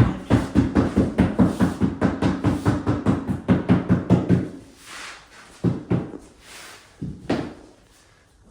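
Rapid, even tapping on a large tile, about four or five knocks a second with a low hollow ring, as it is beaten down into its mortar bed. It stops about four and a half seconds in, and a few single knocks follow.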